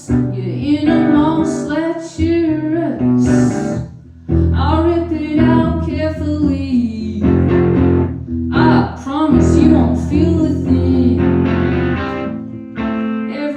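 Live indie rock band playing a song: guitars and bass over a steady backing, with a woman singing melodic lines that bend in pitch.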